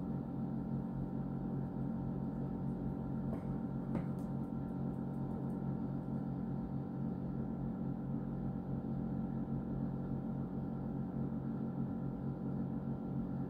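Steady machine hum made of several fixed tones, unchanging throughout, with a few faint light clicks about three to five seconds in.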